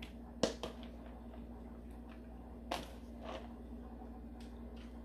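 A few soft rustles and light clicks as shredded cheese is scooped by hand from a plastic container and sprinkled over a foil pan of macaroni. The sharpest click comes about half a second in. A faint steady hum runs underneath.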